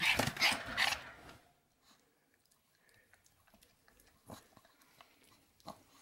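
Pomeranian crunching dry kibble from its bowl: a quick run of crunches in the first second or so, then only a few scattered clicks.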